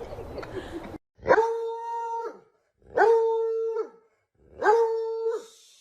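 A dog howling three times, each howl about a second long, rising quickly to a held note and dropping away at the end.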